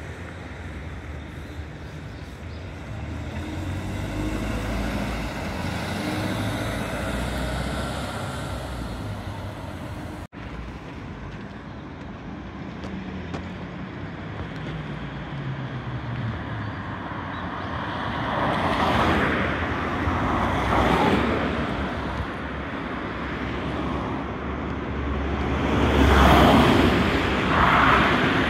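City bus engine running as the bus rounds a curve and draws near, its note rising and falling around the middle, with passing road traffic. The sound swells twice near the end as the bus passes close by.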